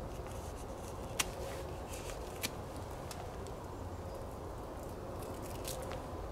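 Dry bark on a dead birch trunk cracking as it is pried and peeled off by hand. There is a sharp crack about a second in, another a second later and fainter ones near the end, over a steady low background rumble.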